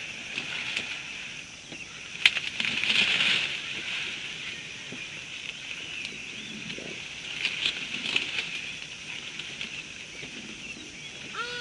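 Outdoor bush ambience: a steady high chorus with scattered rustling, a single sharp crack about two seconds in, and a short pitched animal call at the very end.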